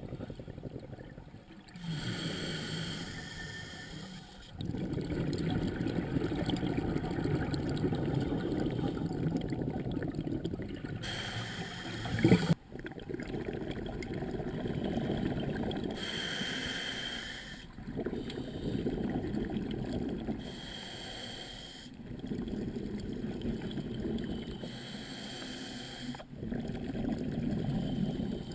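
A scuba diver breathing through a regulator underwater. A short hiss on each inhale alternates every few seconds with a longer low rumble of exhaled bubbles. One sharp knock comes about twelve seconds in.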